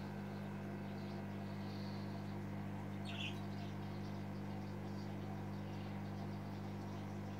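Steady low hum of running aquarium equipment, with a brief high chirp about three seconds in.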